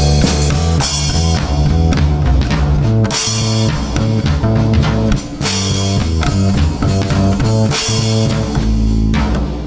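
A bass playing a bass line of repeated low notes over a rock backing track with drum kit and guitar.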